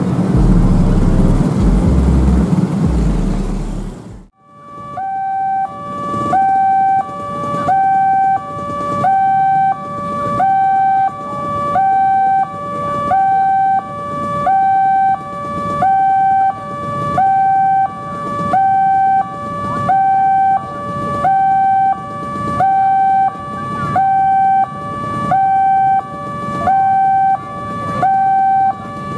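Railway level-crossing electronic warning alarm sounding from the loudspeaker on the crossing post: two tones alternating evenly, low and high, about one full cycle every 1.3 seconds, the signal that a train is approaching and the barriers are coming down. Before it, about four seconds of loud traffic noise cut off abruptly.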